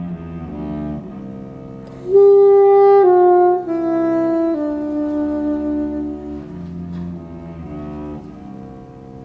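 Saxophone and cello playing a slow duet in held notes. About two seconds in the saxophone comes in louder with a descending phrase over the cello's low sustained notes, and the music grows quieter near the end.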